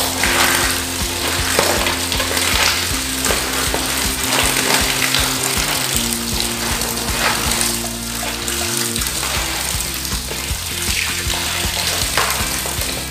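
Tap water running and splashing into a plastic colander as food is rinsed and rubbed by hand. Background music with long held notes plays over it.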